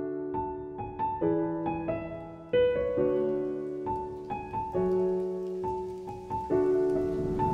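Background music: a slow, gentle piano piece, single notes and chords struck and left to fade.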